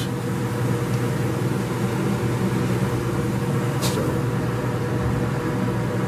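Steady machine hum from a running electric motor, with one sharp click about four seconds in.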